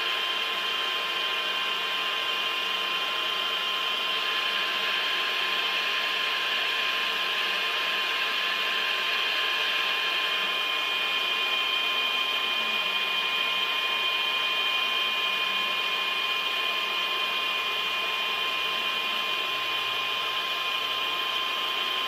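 A machine tool running steadily, giving a constant mechanical whine with several high steady tones over a noise of machinery.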